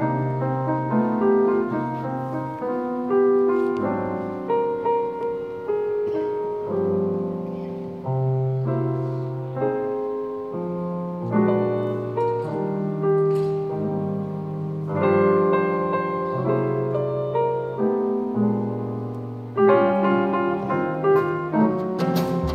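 Yamaha grand piano played alone in a slow jazz introduction, with rolled chords and melodic runs ringing out. Right at the end the drums come in.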